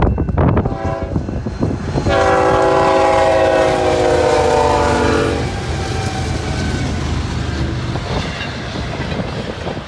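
Locomotive air horn of a BNSF intermodal train sounding a long chord from about two seconds in, its pitch sagging slightly as the engine passes at speed. The horn stops after a few seconds, leaving the loud rush and rumble of the train's cars going by.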